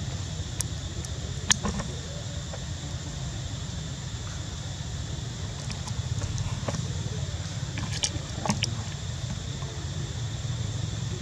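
Outdoor background: a steady low rumble and a steady high-pitched buzz, with a few sharp clicks and light rustles, the loudest click about a second and a half in.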